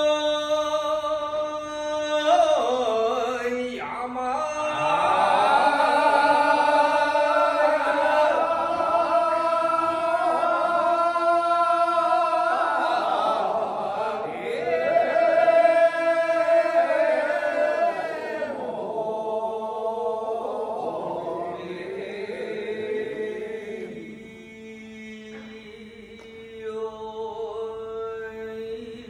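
Men's voices chanting a celebratory kiyari, the traditional Edo work-song chant: a single lead voice holds long drawn-out notes, then the group joins in with many voices together about four seconds in, thinning to fewer voices in the last third.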